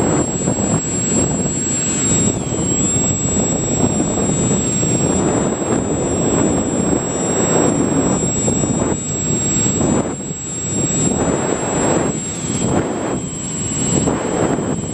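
Onboard sound of a Multiplex EasyStar electric model plane in flight: air rushing over the microphone, with the thin whine of its electric motor and propeller. The whine dips in pitch about two seconds in and again near the end.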